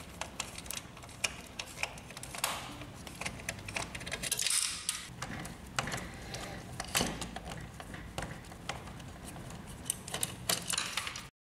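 A screwdriver turning out the screws of a laser printer's power supply board: irregular small metallic clicks and scrapes, with a brief scraping hiss about halfway through. The sound cuts off suddenly near the end.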